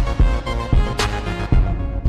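Music with a steady drum beat over held chords.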